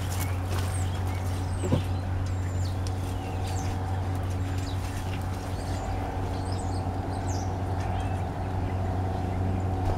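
Steady low outdoor hum with small birds chirping faintly now and then, and a single sharp tap a little under two seconds in.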